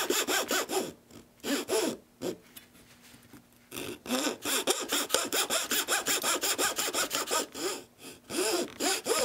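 Small hand saw cutting the joint notch into a guitar X-brace: runs of quick back-and-forth strokes, about six a second, with brief pauses between runs.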